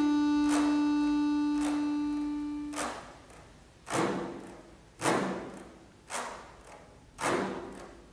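Piano accordion: a held chord with a strong low note fades out, then short, sharp thumps come about once a second, each carrying a brief low note, as a percussive passage in a contemporary accordion piece.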